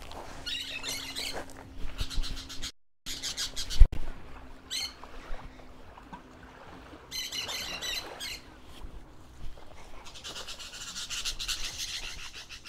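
Parrots yelling in several bouts of loud, repeated calls. A single sharp knock about four seconds in.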